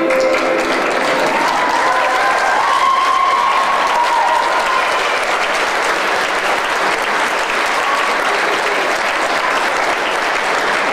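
Audience applauding, a dense, steady clapping that sets in as the last held note of a soprano saxophone ends about half a second in.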